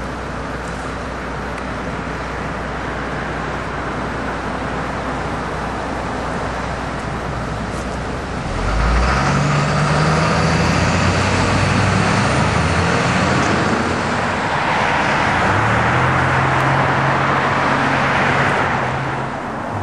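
Road traffic on a busy multi-lane road, vehicles passing steadily. About eight seconds in it gets louder, with the low, shifting engine note of heavy vehicles running close by, and it eases off again near the end.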